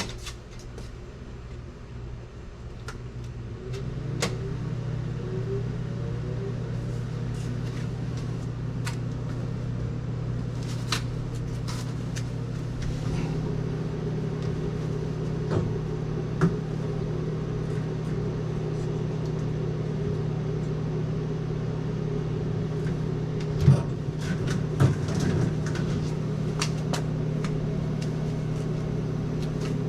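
Refrigeration unit of a commercial cold table running with a steady, many-toned hum that grows louder about four seconds in and again partway through, with scattered clicks and knocks over it.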